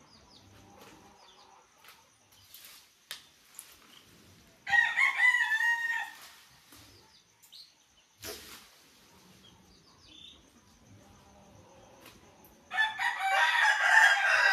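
A rooster crowing twice, about five seconds in and again near the end, each crow a loud pitched call lasting a second and a half or more.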